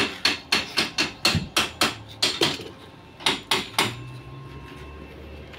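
Hammer blows on a piece of sheet metal resting on a wooden block: a quick run of about a dozen sharp strikes, a short pause, then three more. A low steady hum comes in for the last second or so.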